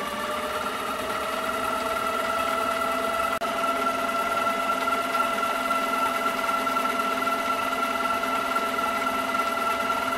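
Harbor Freight metal lathe running at steady speed, its motor giving a steady whine after its pitch settles at the very start.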